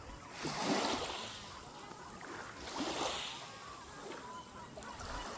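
Waves washing in as two swells, about a second in and again about three seconds in, with faint gull calls throughout.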